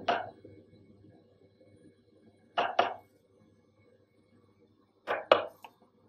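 Clicks from the dial and buttons of a Daikin heat pump's wall-mounted controller being pressed and turned: two quick clicks between two and three seconds in, then three more near the end, over a faint steady hum.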